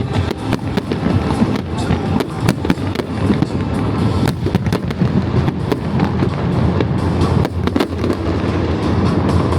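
Fireworks display: a dense run of rapid cracks and bangs, many a second, over a continuous low rumble, with music playing underneath.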